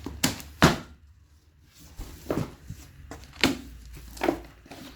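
Speaker packaging being handled as the box is opened: about five separate knocks and bumps, the loudest about two-thirds of a second in.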